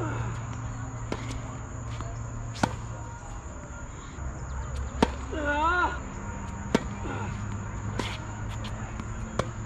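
Tennis balls struck by racquets and bouncing on a hard court in a rally: about six sharp pops a second or two apart, two of them loud and near, the others fainter, over a steady low hum.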